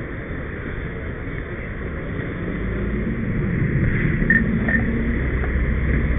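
Steady low rumble of a fire engine running nearby, growing a little louder after about two seconds, with rustling from the moving camera.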